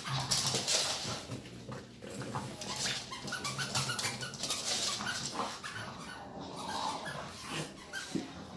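French bulldog vocalising while it plays with plush toys, with a low sustained sound in the first few seconds and short higher whines, amid clicks and rustles of play on the floor.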